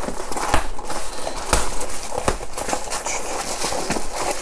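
Cardboard shipping box being torn open and handled by hand: paper and cardboard rustling and scraping, with several dull knocks as the box is pushed and the flaps are pulled back.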